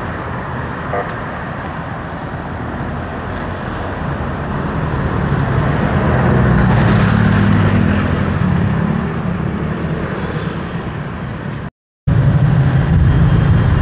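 Road traffic noise: a motor vehicle's engine hum swells to its loudest about halfway through and fades, over a steady wash of road noise. The sound cuts out completely for a moment near the end, then the engine hum returns.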